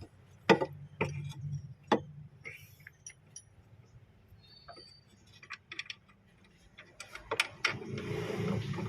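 Scattered sharp clicks and clinks of hand tools and parts being handled while a fuel-line fitting on a Ford Everest is put back together. A low rumble comes up near the end.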